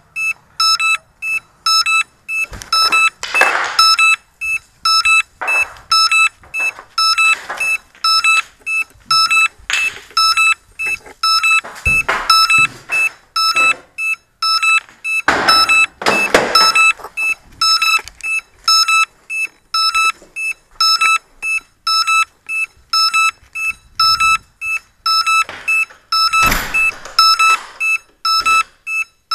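A crashed drone's beeper sounding a steady high beep about twice a second, the alarm a downed drone gives off and which the finder takes for its owner trying to locate it. Several times there is louder rubbing and knocking as the drone is handled.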